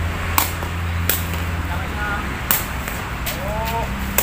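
Sepak takraw ball struck five times in a rally, each touch a sharp smack about a second apart, the last as a player leaps for a spike at the net.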